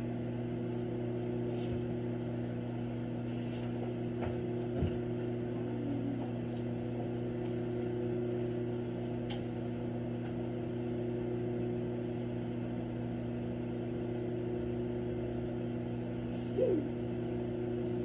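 Sunbeam microwave oven running: a steady hum, with a faint tick about five seconds in.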